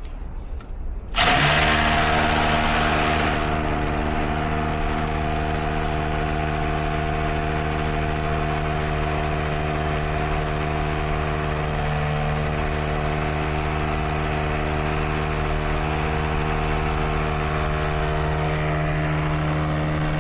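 An electric power-tool motor switches on about a second in and runs at a steady, unchanging pitch for about twenty seconds, then cuts off at the end.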